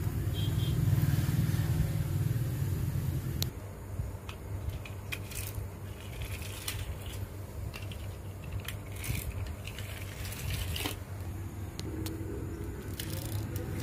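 Miniature plastic toy vehicles rolling across a tabletop: a low rolling rumble for the first three seconds or so, then scattered sharp plastic clicks and knocks as the small wheels and bodies move and bump.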